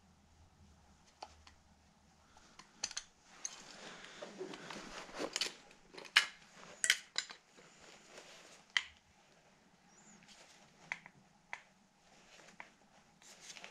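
Scattered light clicks and taps of a screwdriver and the metal carburetor body being handled while a soft brass fitting is screwed into an Edelbrock Performer carburetor, with some soft rustling and a few sharper clicks near the middle.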